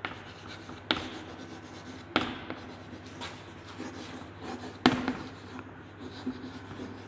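Chalk scratching across a blackboard as a word is written, with three sharp taps of the chalk striking the board.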